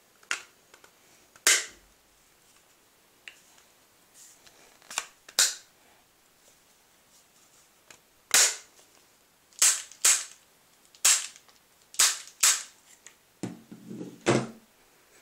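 Airsoft gun firing single shots, about a dozen sharp cracks at uneven intervals, some in quick pairs.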